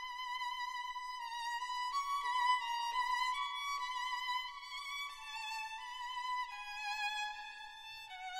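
Background music: a slow violin melody of long held notes with vibrato, moving to a new pitch about once a second.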